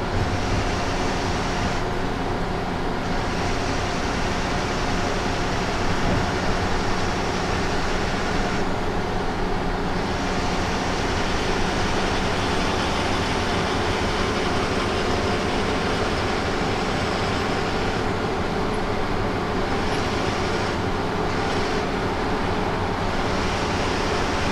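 Bus driving at a steady speed, heard from inside: a constant engine hum and road drone, with the upper hiss easing off for a moment a few times.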